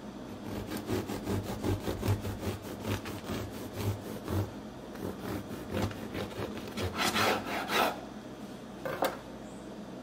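Serrated bread knife sawing through a hard, crusty loaf on a wooden cutting board: rasping back-and-forth strokes, about two a second, that stop about eight seconds in. A single short knock follows near nine seconds.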